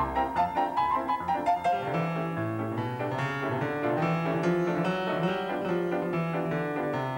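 Piano music playing quick runs of notes over a low bass line.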